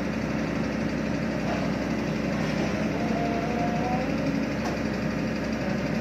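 Diesel engine of a Sumitomo tracked asphalt paver running steadily as the machine crawls down a lowboy trailer's ramp.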